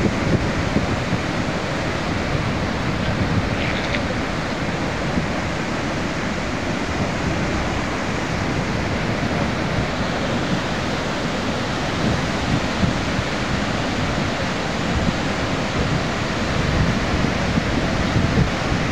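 Steady rushing of a river in full flood, fast muddy water running hard, with wind noise on the microphone.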